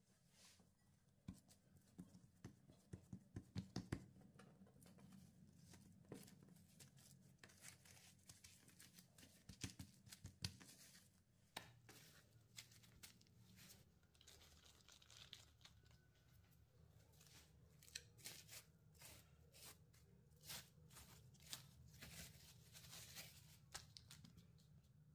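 Faint food-preparation handling noises: a scattered run of small taps, crackles and rustles, thickest in short flurries.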